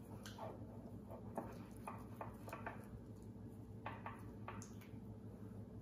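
A small utensil stirring thick powdered-sugar glaze in a ceramic cup: faint, irregular scrapes and light taps against the cup, over a low steady hum.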